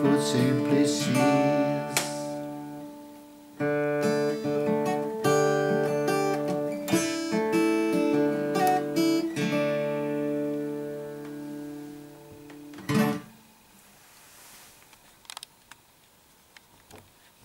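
Taylor acoustic guitar played on its own, picked notes and chords ringing out in the song's closing phrase, ending with a last strum about 13 seconds in that fades away. A few faint clicks follow near the end.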